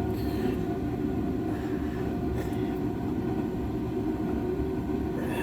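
Shop heater running with a steady low rumble.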